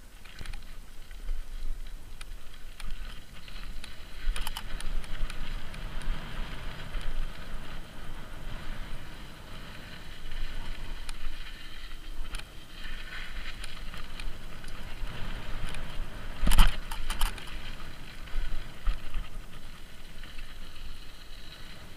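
Mountain bike descending a dirt and gravel trail: tyres crunching over the loose surface and the bike rattling, with wind rumbling on the microphone. A few sharp knocks from the bike hitting bumps, the loudest about two-thirds of the way through.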